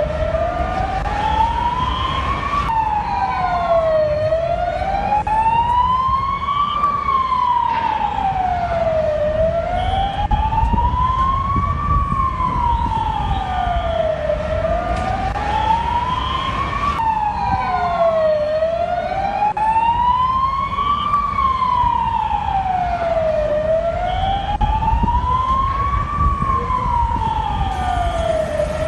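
Emergency vehicle siren in a slow wail, rising and falling about once every five seconds, over a steady low rumble.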